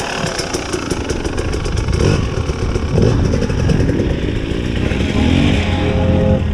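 Dirt bike engines running close by, with one revving up, rising in pitch about five seconds in.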